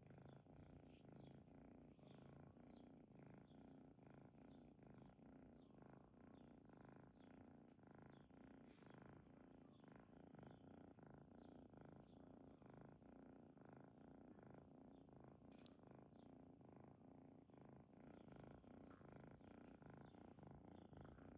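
A domestic cat purring steadily, a deep, continuous purr.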